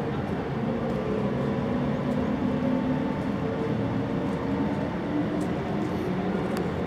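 Steady urban background rumble of engines and traffic, with a low hum that drifts slightly in pitch.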